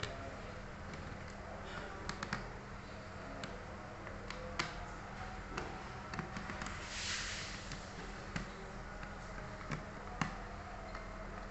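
Small sharp clicks and taps of a screwdriver and the plastic base cover of a Lenovo ThinkPad X250 laptop being unscrewed and opened, about ten scattered over the stretch, with one brief scraping rustle about seven seconds in.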